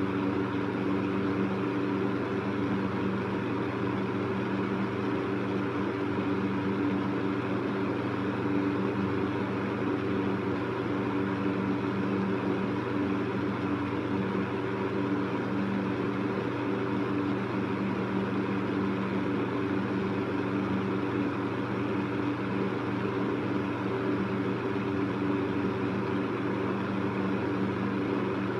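Electric fan running steadily: an even rush of moving air over a constant motor hum.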